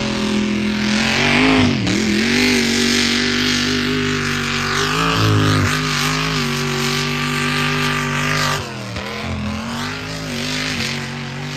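Lifted mud truck's engine held at full throttle through the pit without lifting, running loud at high revs. The pitch sags briefly about two seconds in and again near the end, then climbs back.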